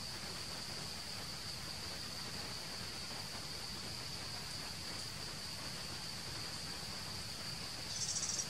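Steady, high-pitched insect chorus over a soft hiss, with a brief, louder, rapidly pulsing trill near the end.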